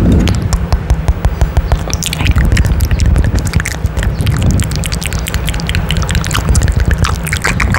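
Kissing and wet mouth sounds pressed right against a microphone's mesh grille: rapid wet smacks and clicks over a low rumble.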